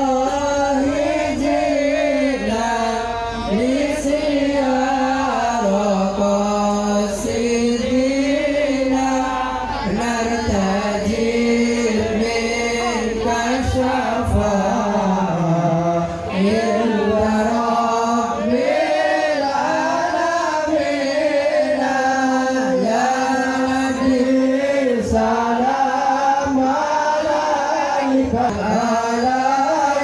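Several voices singing a slow song together into microphones, with long held notes that slide between pitches, amplified through loudspeakers.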